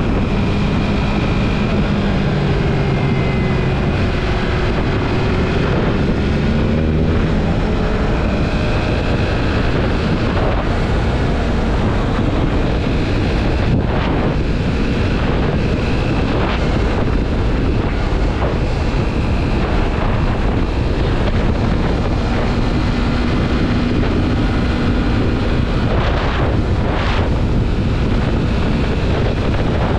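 Yamaha MT-03 motorcycle riding on the road: steady wind rush on the microphone over the engine, whose pitch shifts up and down with the throttle in the first several seconds.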